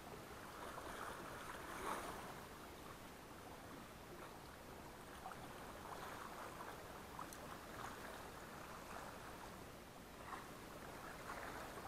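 Small waves lapping and sloshing against the rocks at the water's edge: a steady gentle wash, with a few slightly louder splashes about two seconds in and near the end.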